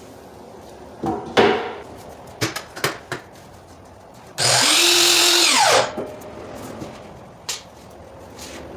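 Knocks from handling the crown molding at the saw, then a powered miter saw starts, runs for about a second and a half making a 22½-degree miter cut in the crown molding, and winds down with falling pitch after the trigger is released.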